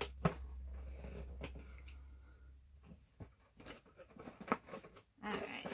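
Scissors cutting open a cardboard shipping box, with scattered sharp snips and clicks and the scratch and rustle of the box being handled.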